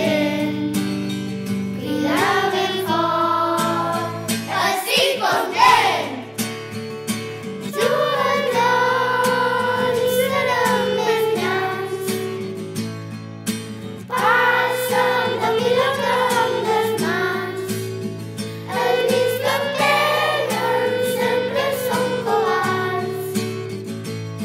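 A children's song: a group of young voices singing together over an instrumental backing.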